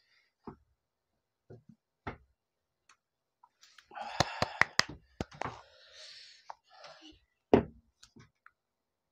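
A man reacting to the burn of a super-hot spicy chip: scattered small mouth clicks and sniffs, then about four seconds in a strained vocal cry over a quick run of several sharp hand claps, and a single loud thump a few seconds later.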